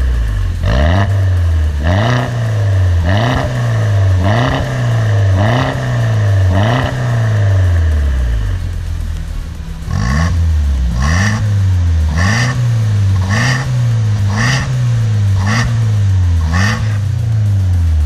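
Mini Cooper S R56's turbocharged four-cylinder engine revved in short blips through an aftermarket valved exhaust, about one blip a second. The blips come in two runs with a pause of a couple of seconds between them, a little past the middle.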